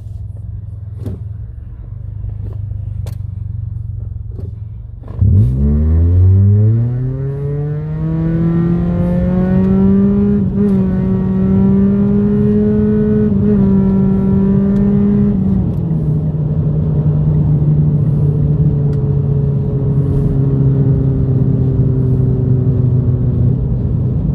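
The 2015 Mitsubishi Lancer GT's four-cylinder engine, heard from inside the cabin with its CVT, under a full-throttle 0-60 run. After about five seconds of steady road rumble, the revs jump suddenly and climb fast, then hold high and creep upward. Two brief dips mark the CVT's stepped shifts. About fifteen seconds in, the revs drop to a steady cruise.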